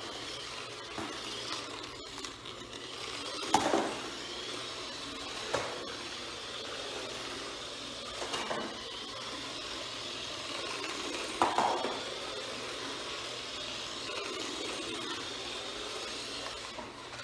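Toy RC car with a papier-mache body, its small electric motor running with a faint high whine that rises and falls, and a few sharp knocks spread through.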